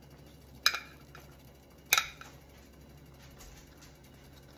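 Metal kitchen tongs clicking twice, a little over a second apart, with a short metallic ring, as chicken thighs are set into a stainless steel pan. A faint low hum runs underneath.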